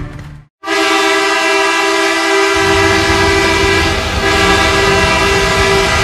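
Edmonton Oilers arena goal horn blasting: a loud, steady chord of several horn tones that starts suddenly just after a moment of silence and holds, sounding piercing and off-key, with a crowd cheering underneath from about two and a half seconds in.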